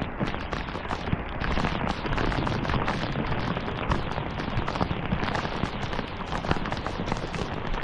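Rain falling steadily, a dense patter of many close, sharp drop hits.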